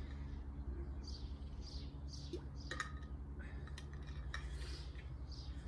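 Wind rumbling on the microphone, with a small bird chirping over it in short, high, falling notes repeated every half second or so. A few faint clicks or taps come and go.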